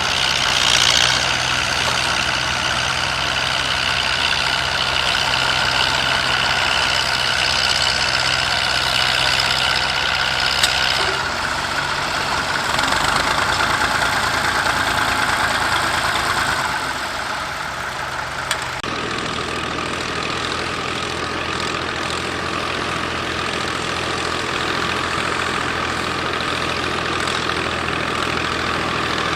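Massey Ferguson 135 tractor engine running steadily while ploughing. Its pitch and tone shift abruptly twice, about a third and about two thirds of the way through.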